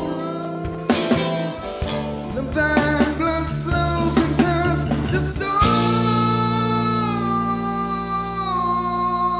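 Live rock band playing: electric guitars, bass guitar and drums with a singer. About five and a half seconds in, the sharp hits stop and the band holds long ringing chords.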